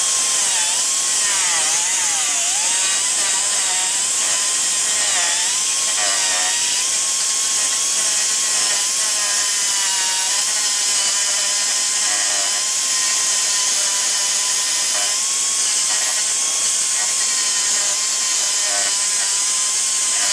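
Small right-angle cut-off tool with a thin cutting wheel running at a high whine over a hiss as it cuts through thick plastic. Its pitch dips and wobbles as the wheel bites for the first several seconds, then holds steadier.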